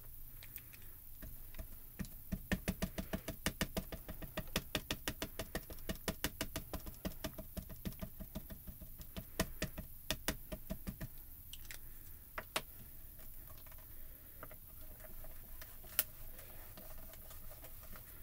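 Mini ink pad being dabbed rapidly against a clear rubber-stamping stamp to re-ink it, a quick run of light taps, about four or five a second, lasting some nine seconds. A few separate knocks follow, and one sharp click near the end.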